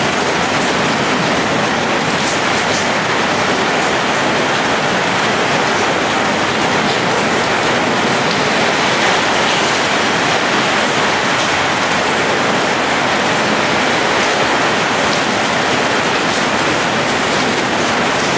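Heavy tropical rain pouring steadily, pattering on a corrugated metal roof and streaming off its edge.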